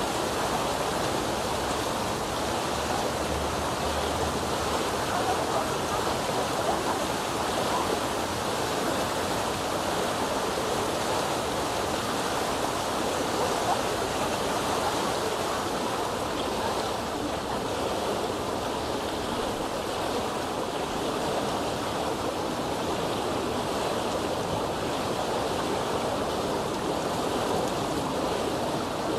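Public swimming pool ambience: a steady, even wash of water splashing and churning from swimmers.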